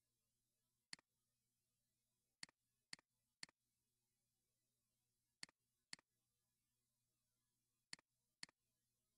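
Computer mouse clicking: eight faint, sharp clicks, mostly in pairs or threes about half a second apart, over a faint steady low hum.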